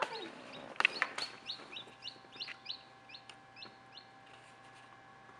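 Newly hatched chicks peeping inside a small egg incubator: a run of short, high peeps, each sliding down in pitch, a few a second, thinning out toward the end. Two sharp knocks sound about a second in, over a faint steady hum.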